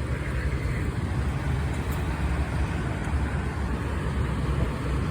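Steady low rumble of vehicle engines and traffic around parked fire apparatus running on scene.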